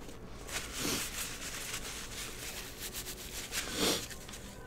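Soft rustling and handling noises from gloved hands working a paper towel and food, with two louder rustles about a second in and near the end.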